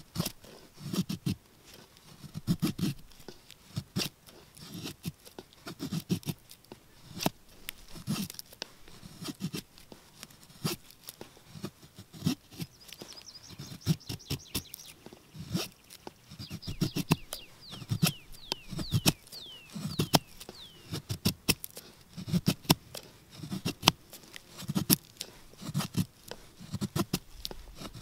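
Knife blade shaving curls down a stick of wood to make a feather stick: a run of short scraping strokes, roughly one a second. A small bird chirps a quick series of falling notes about midway.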